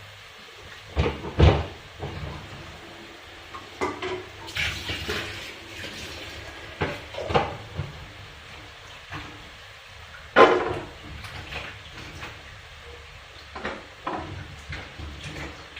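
Cooking utensils knocking and clinking against cookware in irregular sharp strokes, with two louder knocks, one about a second and a half in and another about ten seconds in.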